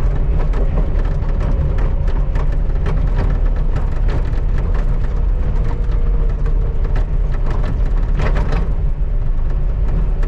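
Skid steer engine running steadily under load with a heavy low rumble, overlaid by irregular clatter and scraping as the bucket scrapes snow off the pavement.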